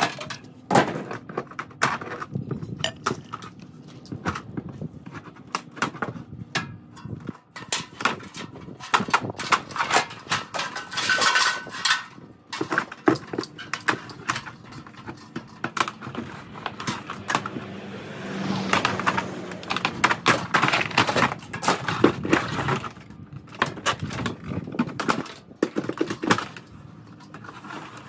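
Vinyl siding panels being unlocked and pulled off a wall: irregular clattering, knocks and plastic snaps throughout.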